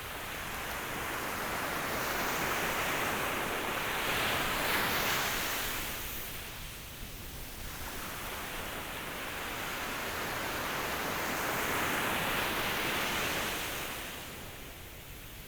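Ocean waves breaking and washing ashore, a steady surf hiss that swells and recedes in two slow surges.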